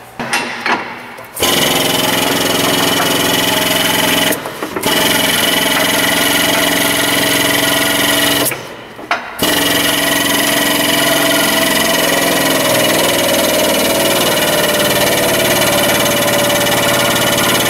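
Powered rolling jack on an alignment lift running as it raises the truck's front end onto the lower control arms. The jack runs steadily in three stretches, stopping briefly twice.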